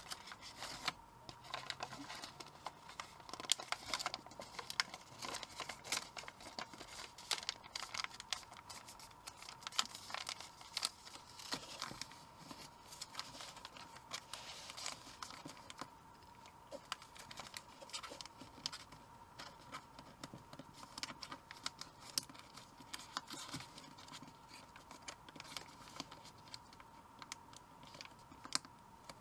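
Origami paper crinkling and rustling in quick, irregular crackles as fingers fold it and press its creases flat, over a faint steady high tone.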